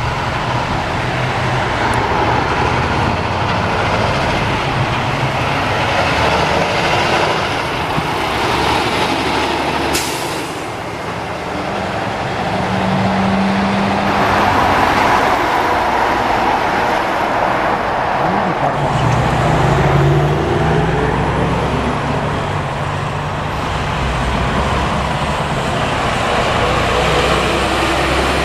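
Semi trucks' diesel engines running as they pass on a road, over steady tyre and traffic noise. A brief sharp hiss comes about a third of the way in.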